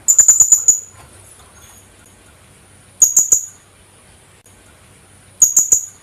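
Philippine hanging parrot (colasisi) calling in three short bursts, each a quick run of shrill, very high-pitched notes. One burst comes at the start, one about three seconds in and one near the end.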